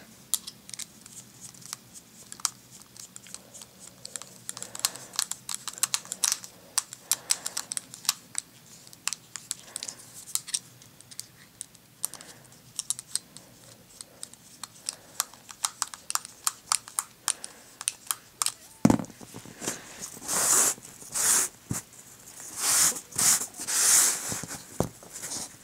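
Many small sharp clicks and ticks of plastic and metal parts being handled as a cordless drill motor is refitted to its plastic planetary gearbox housing and its screws are turned by hand. From about three-quarters of the way in come louder scraping, rustling swishes as the assembly is moved over cardboard.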